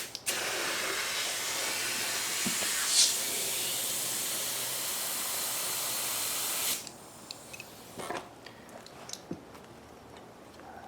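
Compressed air hissing steadily from a compressor's air chuck into a fat bike tire as it is inflated, with a brief break right at the start. It cuts off suddenly about seven seconds in, and a few light clicks follow.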